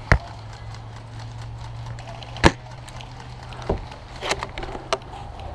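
Airsoft gunfire in single sharp shots over a low steady hum. One shot comes at the very start and a louder one about two and a half seconds in, followed by three fainter snaps in the last two seconds.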